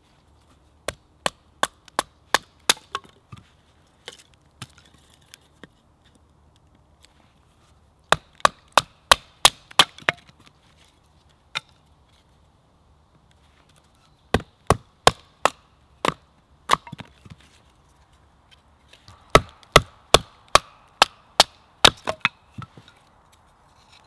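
Kindling being split with a knife on a wooden chopping log: four runs of sharp wooden knocks, about three a second, with the splitting wood cracking and splintering.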